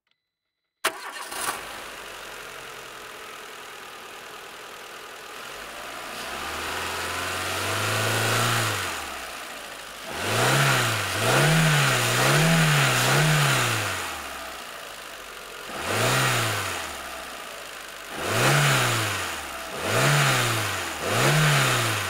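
Renault Twingo's 58 PS four-cylinder petrol engine starting up about a second in and settling to idle. It is then revved: one slow, long rise and fall, followed by a run of short throttle blips, each a quick rise and fall in pitch, with idle between them.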